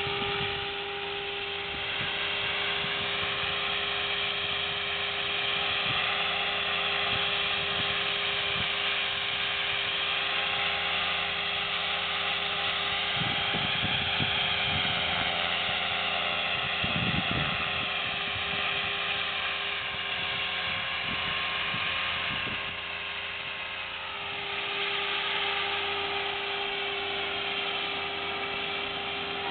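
Align T-Rex 500 ESP electric RC helicopter in flight: the steady whine of its brushless motor and drivetrain with rotor noise, the pitch wavering a little, and a few brief low rumbles near the middle.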